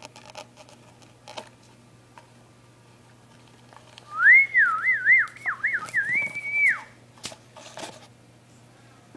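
A person whistling a short tune: one clear note wavering up and down for about two and a half seconds, starting about four seconds in. Faint handling clicks come before and after.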